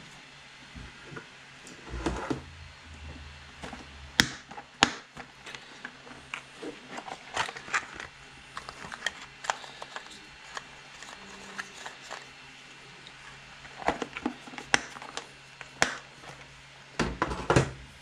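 Scattered clicks, taps and rattles of small parts being handled on a workbench, including a clear plastic compartment box of heat-shrink tubing being opened and picked through. The sharpest clicks come about four and five seconds in, with busier bursts of clatter after the middle and near the end.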